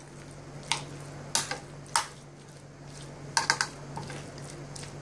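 Metal spoon stirring a thick white-sauce-and-vegetable mixture in a ceramic bowl, clinking against the bowl at irregular moments, with a quick run of clinks about three and a half seconds in. A faint steady low hum runs underneath.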